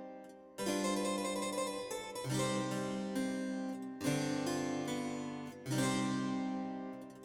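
Background music: a keyboard instrument playing slow chords, a new chord about every second and a half, each one dying away before the next.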